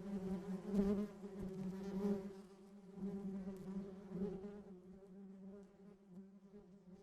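A bee buzzing in flight: a steady wing hum whose loudness swells and dips as it moves about, fading away toward the end.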